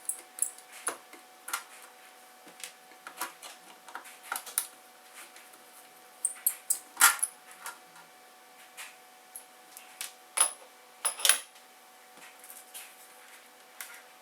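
Plastic instrument-cluster parts and gauge faces being handled and fitted by hand: a string of irregular clicks and taps, the sharpest ones in the middle and a little later.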